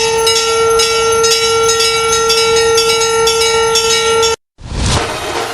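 Bells ringing in quick, repeated strikes over a steady held tone, loud. The ringing cuts off abruptly about four and a half seconds in, and a noisy swell like a cymbal starts up right after.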